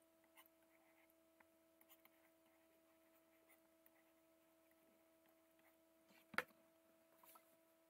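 Near silence: room tone with a faint steady electrical hum and a few soft ticks, and one short click about six and a half seconds in.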